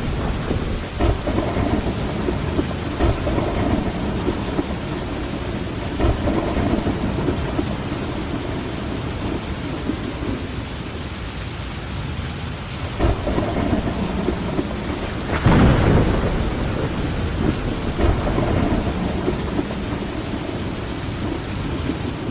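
Steady rain pattering on a window glass, with low rumbles of thunder rolling in and out several times. The loudest peal comes about two-thirds of the way through.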